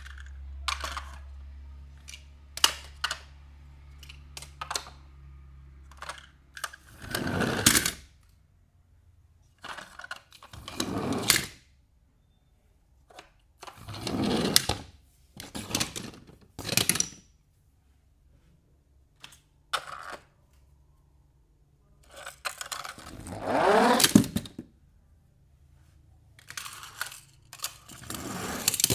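Toy cars and their plastic packaging being handled: scattered clicks and taps, with several crinkling, rustling swells about a second long.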